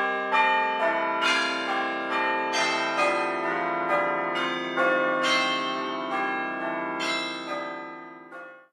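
iPhone ringtone of bell-like chimes: a melody of struck bell notes, about one or two a second, each ringing on under the next, fading away near the end.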